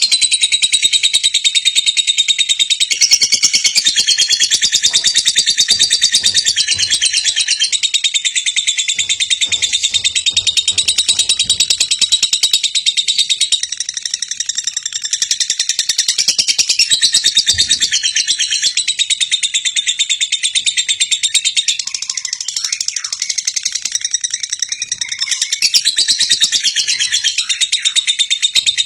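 Lovebird singing a long ngekek: a rapid, high-pitched chatter of clicks and trills kept up without a break.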